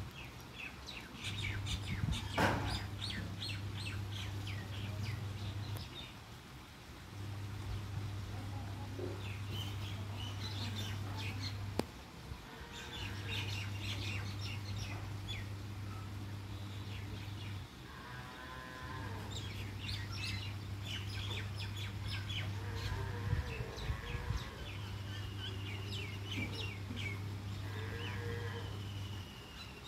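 Birds chirping over a low hum that runs for four to five seconds at a time with short breaks, with a couple of brief pitched calls.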